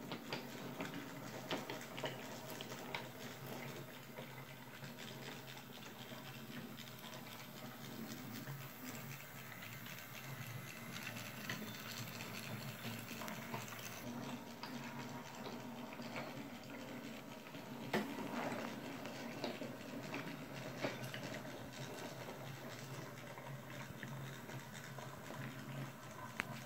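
Battery-powered toy train running around a wooden track: a small motor humming steadily, with scattered clicks as the engine and cars roll over the track joints.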